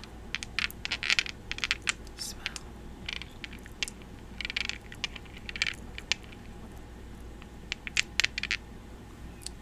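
Fingers handling and scratching at a small object held close to the microphone: irregular sharp clicks and short scratchy rustles.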